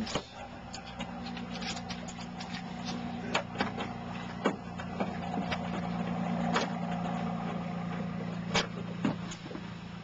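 Steady machine hum like an idling engine, with a handful of sharp clicks and taps as small tools and a wire terminal are handled at a terminal strip.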